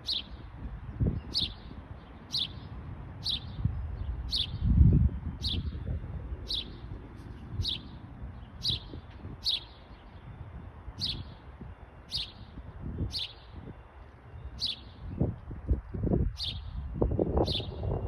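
A small songbird, which the uploader takes for a house sparrow, gives a single short, high chirp over and over, about once a second. Low rumbling and thumps on the microphone sit underneath, loudest about five seconds in.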